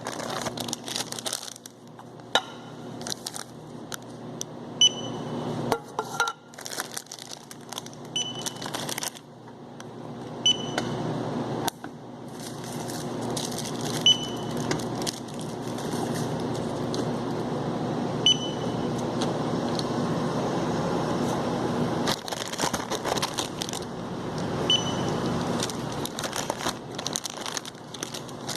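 Supermarket checkout with a barcode scanner giving short, high beeps at irregular intervals, about eight in all, as items are scanned. Under the beeps runs continuous rustling and clatter of goods and packaging being handled.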